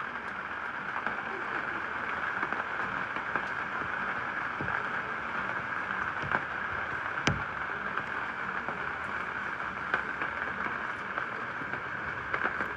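Steady rain, an even wash of noise, with scattered sharp drop clicks and one louder knock about seven seconds in.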